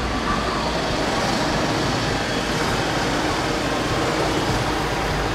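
A steady mechanical running noise with a constant low hum, holding at one level throughout.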